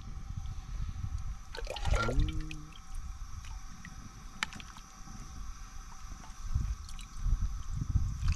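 Thick stew sloshing and squelching as it is ladled into a bowl, with a few light clicks and a short voice sound about two seconds in.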